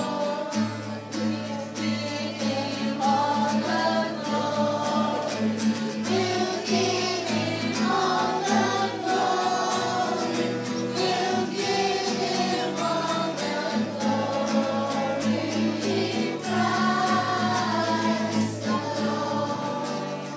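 A choir of young children singing a Christmas song over a backing track with a steady beat.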